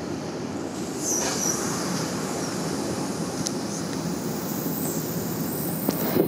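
Car-carrying train running on the rails, heard from its open flat wagon: a steady rumble of wheels on track, with a brief high squeal about a second in.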